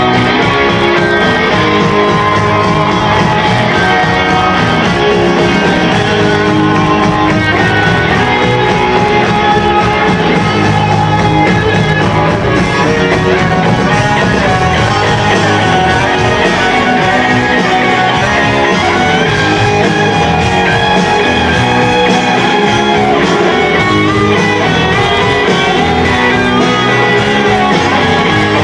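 Live rock band playing loudly, electric guitars to the fore, with little or no singing: an instrumental passage of the song.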